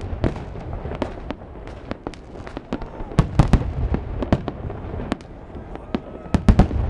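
Aerial fireworks shells bursting in a rapid, irregular series of bangs and crackles over a steady low rumble. The loudest clusters of bangs come about three seconds in and again near the end.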